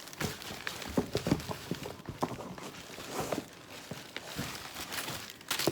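Packaging being handled: paper rustling, with a run of irregular light knocks and taps, the loudest about a second in.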